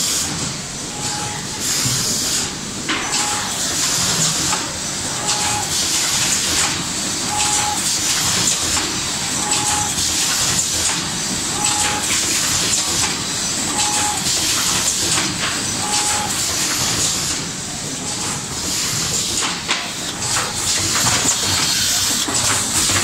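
Automatic rigid box making line running: steady machine noise with hissing that swells and fades, and a short electronic beep repeating about every two seconds, eight times, stopping about two-thirds of the way through.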